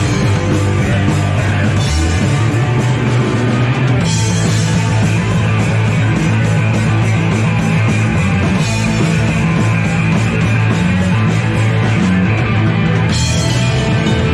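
Punk rock band playing live, loud and unbroken: guitar, bass and drums, with the cymbals and high end swelling about four, nine and thirteen seconds in.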